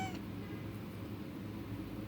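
Domestic cat giving a short, pitched chirping call that cuts off just after the start, the kind of call a cat makes on seeing birds. A low steady hum runs underneath.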